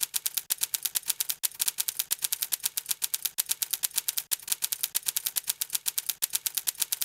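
Typewriter keystroke sound effect: a rapid, even run of key clicks, about nine a second, with two brief breaks.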